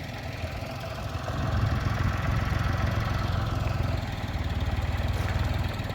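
An engine running steadily at idle with a fast, even pulse, growing a little louder about a second and a half in.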